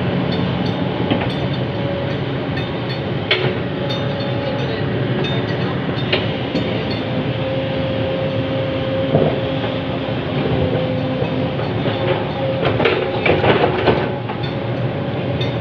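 Heavy diesel earthmoving machinery running steadily, with a wavering mechanical whine over the engine noise and a few sharp clanks and knocks, the loudest cluster near the end.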